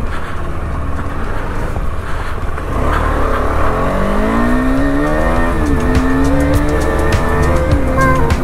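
Motorcycle engine accelerating on the road, its pitch rising through a gear, dropping at a shift about five and a half seconds in, then climbing again. Low wind and road rumble run underneath.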